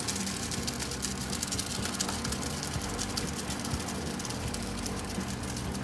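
Wet hand-mixed cement sliding and pouring out of a plastic five-gallon bucket into a hole in a concrete floor, a steady, dense gritty crackle of many small ticks.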